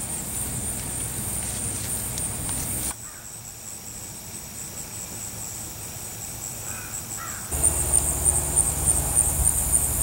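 Rural outdoor ambience dominated by a steady, high-pitched pulsing insect chorus, with a low wind rumble. Two short faint bird calls come about seven seconds in.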